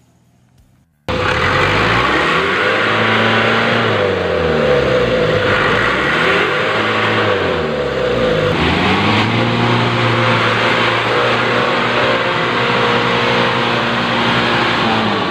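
Diesel truck engine sound that starts abruptly about a second in and then revs up and down over and over.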